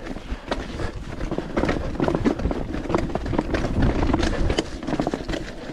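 Canyon mountain bike rolling over rough, rocky trail: tyres crunching on dirt and rock, with the chain and frame rattling and knocking irregularly over bumps, and wind rumbling on the microphone.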